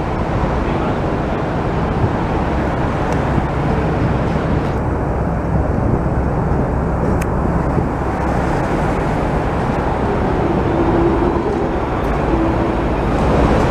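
Steady road traffic noise of a busy city street, with cars, buses and a double-decker tram moving below. A faint held tone comes in for a couple of seconds about three quarters of the way through.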